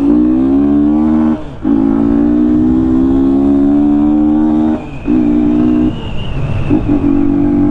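Yamaha Fazer 250's single-cylinder engine, run with its air filter removed, pulling hard through the gears. Its pitch climbs, then drops out briefly at each gear change, about a second and a half in and again near five and six seconds.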